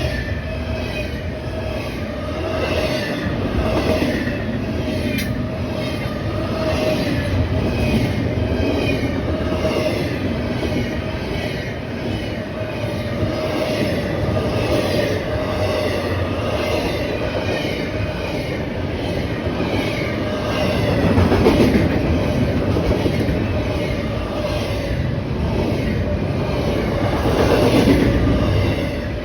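A train rolling past: steady rumble of wheels on the rails with a clickety-clack and a steady squeal from the wheels.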